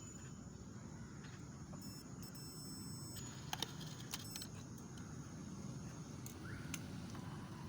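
Optical fibre fusion splicer at work: faint high electronic tones, then a few sharp clicks about three and a half to four seconds in, over a steady low hum.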